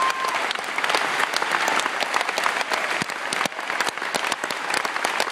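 Audience applauding: a dense, continuous mass of handclaps.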